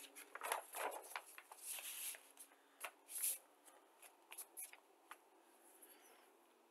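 Paper instruction booklet pages being turned and smoothed flat by hand: a run of short rustles over the first few seconds, thinning to a few soft ticks.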